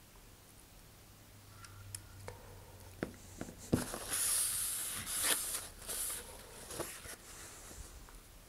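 A paper towel rustling as it is rubbed along a cardboard rocket body tube for a few seconds in the middle, after a few light clicks and taps.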